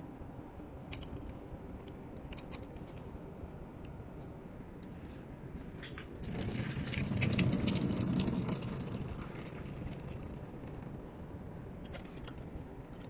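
A few light clicks and knocks as a clip-on silicone strainer is fitted to the rim of a pot of pasta. About six seconds in, the pasta water pours out through the strainer into a stainless-steel sink for about four seconds, then trails off.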